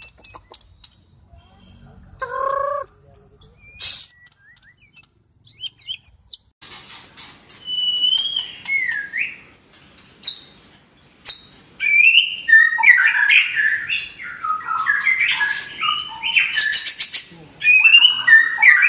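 White-rumped shama (murai batu, Medan type) singing, fired up. A few scattered calls give way, about a third of the way in, to dense, loud, varied song of whistles, pitch glides and rapid stuttering rattles, the 'batuk-batuk' ('coughing') style that keepers prize.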